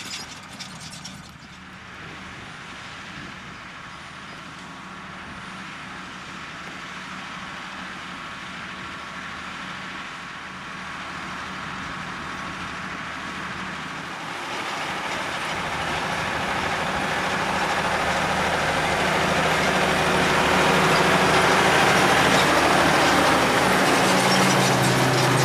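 Valtra tractor engine working under load while ploughing, a steady engine note that grows gradually louder, most of all in the second half, as the tractor draws nearer.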